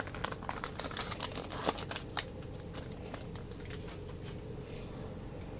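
Wrapper of a 2018 Certified NASCAR trading-card pack crinkling and crackling as it is opened, busy for the first couple of seconds and then dying away.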